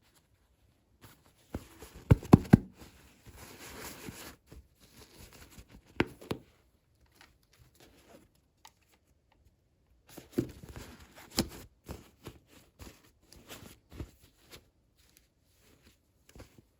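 Hands unboxing small toys: sharp plastic clicks and knocks, a stretch of tearing and crinkling packaging about three to four seconds in, and light taps and rustles between.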